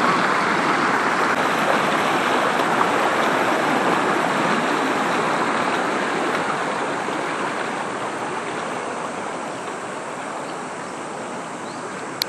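Fast-flowing river water rushing and churning around concrete stepping stones, a steady rush that fades gradually over the second half.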